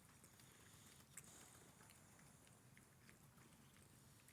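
Near silence with faint scattered small clicks of cats chewing food.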